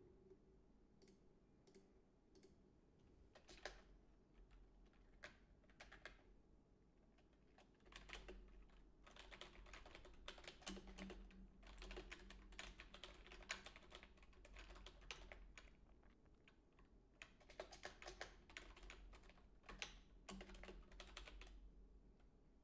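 Faint typing on a computer keyboard: a few scattered keystrokes at first, then quick runs of typing with short pauses from about eight seconds in.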